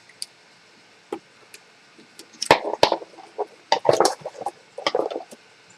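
Hard plastic clicks, knocks and cracks in three quick bunches as a glued-in part is pulled out of a hoverboard's housing.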